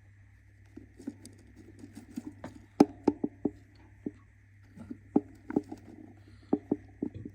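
A budgie scratching and tapping about: irregular sharp taps and scratches, loudest in clusters through the middle and near the end, over a faint steady hum.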